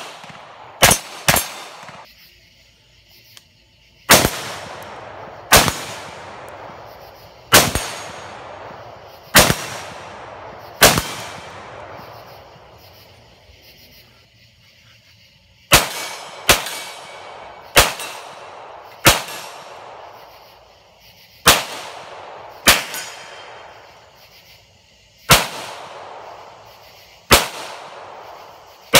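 Firearm shots fired one at a time at a steady pace, about fifteen in all, each a sharp crack followed by a long echoing tail. There is a pause of a few seconds near the middle before firing resumes.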